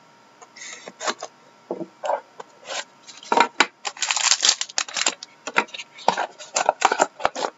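Hockey card box and its packaging being handled and opened: irregular bursts of rubbing, scraping and rustling, busiest in the middle and again near the end.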